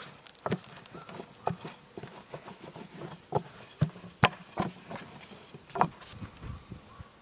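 Irregular sharp clicks and knocks, about a dozen, some with a brief ring after them.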